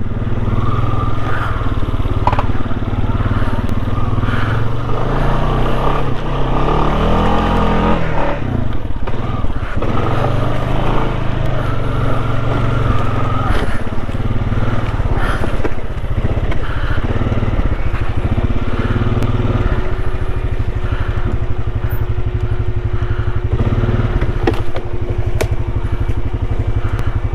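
ATV engine running steadily as it is ridden along a rough four-wheel-drive trail, the engine note shifting around six to eight seconds in, with scattered knocks and rattles.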